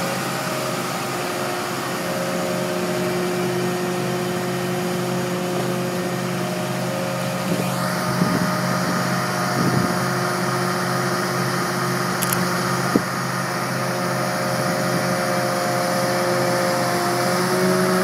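Diesel engine of a Magirus turntable-ladder fire engine running steadily at constant speed, powering the extended ladder, with a few short knocks near the middle.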